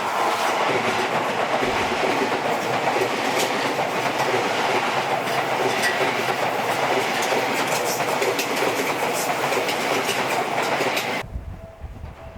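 Seibu 001 series Laview limited express electric train running past close by: a loud, steady rush of wheel and rail noise with scattered sharp clicks. It cuts off abruptly about eleven seconds in, leaving a much quieter low rumble with a faint steady tone.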